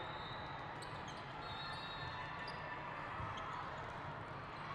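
Indoor volleyball rally in a large echoing hall: a few ball contacts and short sneaker squeaks on the sport court over a steady murmur from the surrounding crowd.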